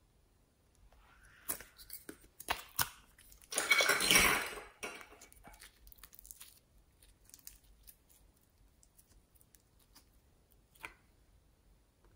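Clicks of a hard plastic slime container being opened, then a loud sticky crackle as the slime is pulled out of it. Quieter squishing follows as the slime is stretched by hand, with one more click near the end.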